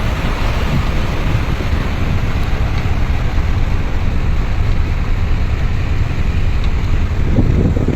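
Steady, loud rush of fast-moving floodwater, with wind buffeting the microphone.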